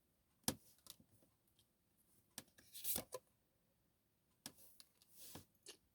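Faint handling of tarot cards: a handful of soft clicks and short slides of card on card or on the table, spread irregularly, with a longer brushing slide about halfway.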